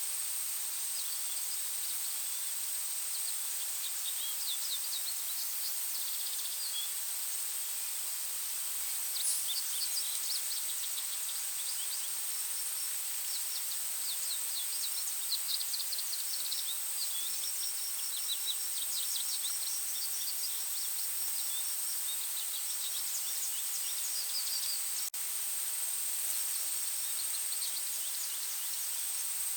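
Forest birds chirping in scattered runs of quick, high chirps over a steady background hiss and a constant high-pitched tone.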